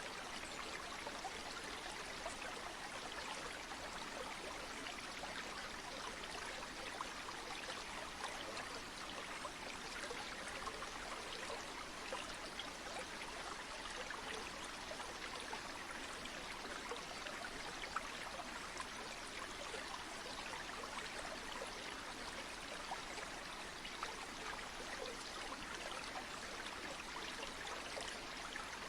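A stream or river flowing steadily, a continuous rush of water with fine, constant splashing.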